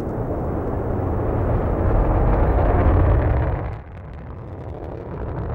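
Low rumble of a Delta II rocket's main engine and solid rocket boosters climbing after liftoff. It swells, then drops suddenly a little under four seconds in to a quieter rumble.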